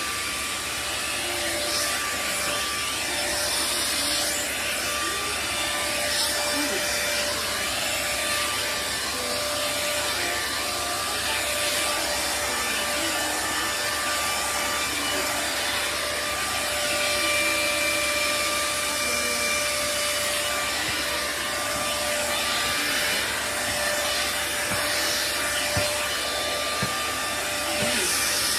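Electric hot air brush blowing steadily, a continuous rush of air over a constant high motor whine, as it is drawn through long hair.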